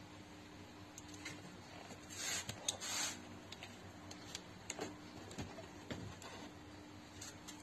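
Plastic door trim panel of a 2013–2018 Seat Leon being pulled off the door and lifted away. Scattered plastic clicks and short scraping rubs, the two loudest about two and three seconds in.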